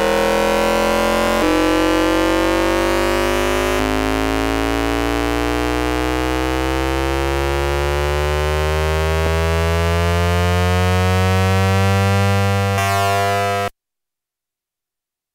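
Hanshin 5500 series train's VVVF inverter noise picked up by an AM radio in a motor car, mixed with tones at the inverter's fundamental frequency. A stack of electronic tones climbs steadily in pitch as the train accelerates, jumps abruptly twice in the first few seconds, and cuts off suddenly near the end.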